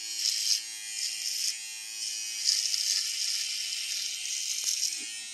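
Handheld electric shaver running steadily while cutting beard stubble on the chin and neck, its buzz swelling with each pass over the skin.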